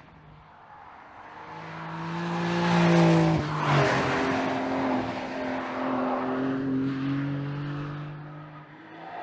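Porsche 911 Carrera GTS's 3.6-litre flat-six engine under way, growing steadily louder. Its note drops sharply about three and a half seconds in, then holds and fades near the end.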